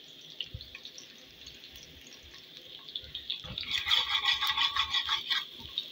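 Metal spoon stirring and scraping onions around a metal pot, with a fast run of scrapes for about two seconds in the second half, over the steady sizzle of onions frying in oil.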